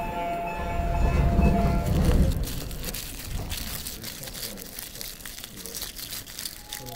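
Bubble-wrap plastic bag crinkling and rustling as it is picked up and opened. A loud low rumble fills the first two seconds, and a subway train's running noise with steady tones runs underneath.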